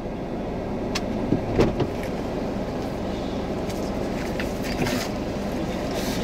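Car running, heard from inside the cabin: a steady low rumble, with a few brief clicks and knocks.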